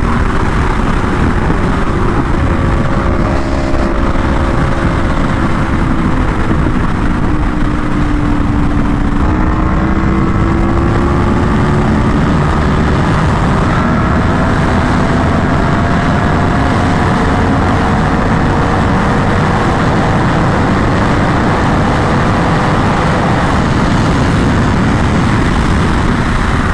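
Sportbike engine running at highway cruising speed under a steady rush of wind. The engine note sags slightly at first, then climbs gently from about nine seconds in as the bike picks up speed.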